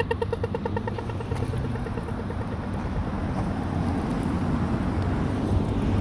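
Road traffic: a vehicle's low rumble growing steadily louder toward the end. A fast pulsing tone fades out in the first second.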